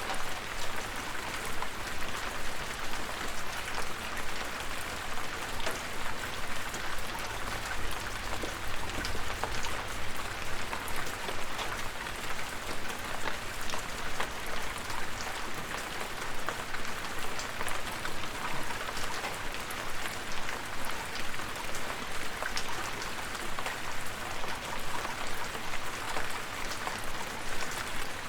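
Steady rainfall, a constant hiss of rain with many individual drops ticking on a surface.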